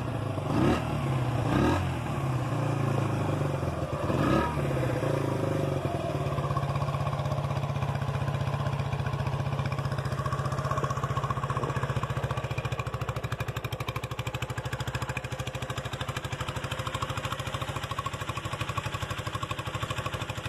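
1975 Honda XL100's single-cylinder four-stroke engine, running after its top-end rebuild. It is revved briefly a few times in the first few seconds, then settles into a steady idle.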